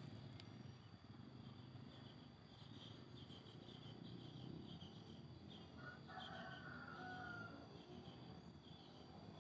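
Near silence with faint bird calls: small high chirps repeating, and one longer drawn-out call about six seconds in.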